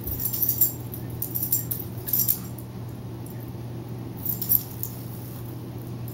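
A dog's collar tags jingling in four or five short bursts as it pounces and paws at a cicada.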